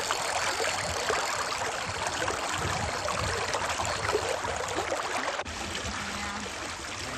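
River water rushing steadily, with one sudden momentary drop about five and a half seconds in before it carries on.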